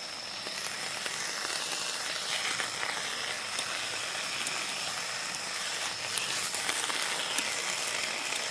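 Wood fire hissing steadily with scattered small crackles, over a steady high trill of crickets.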